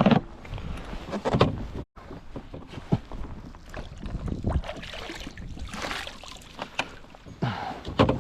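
Irregular knocks and thumps of gear being handled aboard a fishing kayak, with bursts of water and wind noise. The sound cuts out briefly about two seconds in.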